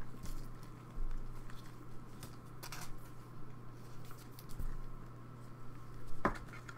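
Trading cards being handled by gloved hands: soft sliding and light tapping as cards are sorted and set down, with a sharper click near the end. A steady low hum runs underneath.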